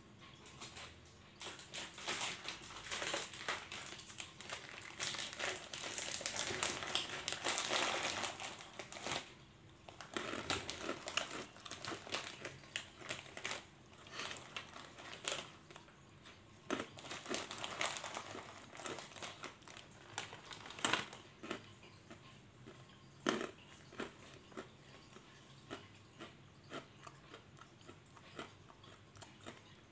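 Plastic snack packet crinkling in irregular bursts, with crunchy biting and chewing. It is busiest in the first ten seconds and thins to occasional small clicks near the end.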